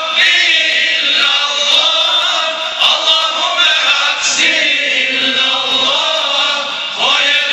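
A small group of men singing an ilahija, a Balkan Islamic devotional hymn, together in long drawn-out phrases; a new phrase begins near the end.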